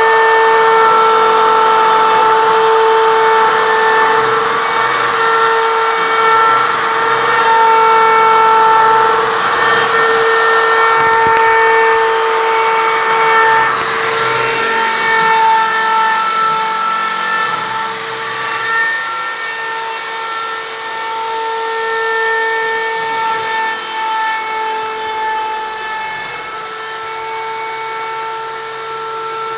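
Plunge router working as a CNC spindle, running at high speed with a steady high whine while it carves a pattern into a pine board. A lower hum comes and goes in short spells. The sound drops a little after about halfway.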